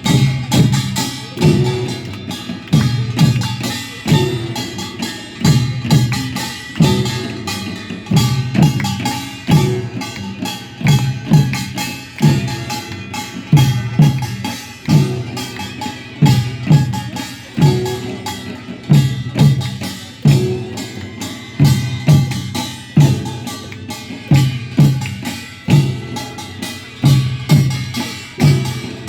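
Korean traditional folk percussion: deep drum strikes in a steady repeating beat, about one accented hit a second, with metal percussion ringing above.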